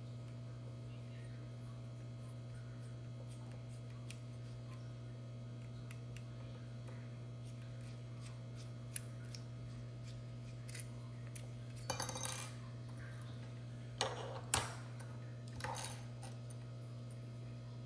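Small hard parts of a Genie garage door opener clicking and clinking as its battery and cover are handled during a battery change. There are a few scattered clatters in the second half, the sharpest about three-quarters of the way in, over a steady low hum.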